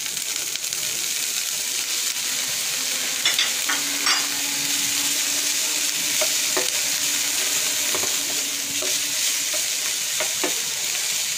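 Soaked soya chunks sizzling loudly in hot oil in a non-stick frying pan, the hiss jumping up as they go in, with a few short taps and scrapes of a spatula as they are stir-fried.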